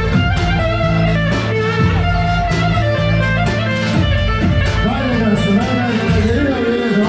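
Music played loud, with a plucked string instrument carrying the melody over steady low bass notes.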